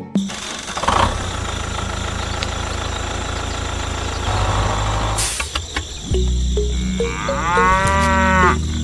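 A cow mooing once, a long call about seven seconds in, over a steady low rumble.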